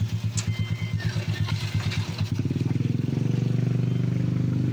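A vehicle engine running with a fast, even pulse, growing louder and steadier a little over two seconds in.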